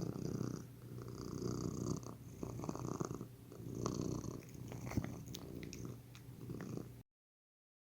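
Domestic cat purring close to the microphone, swelling and fading with each breath, then cutting off suddenly about seven seconds in.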